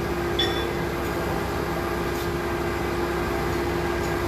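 CNC milling machine running, a steady machine hum with a single held tone through it, and one brief light clink about half a second in.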